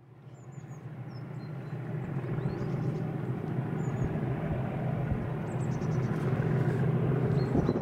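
Class 37 diesel locomotive's English Electric V12 engine heard approaching out of sight, its low drone growing steadily louder.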